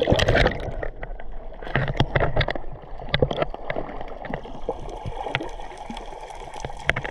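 Sea water heard with the microphone underwater: a muffled, dull wash with many short clicks and crackles scattered through it, after a loud splash right at the start as the camera goes under.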